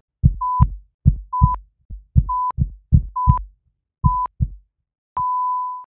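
Heartbeat sound effect: low thumps in lub-dub pairs about a second apart, each with a short high heart-monitor beep. Near the end comes a last thump, then a steady monitor tone held for most of a second, a flatline.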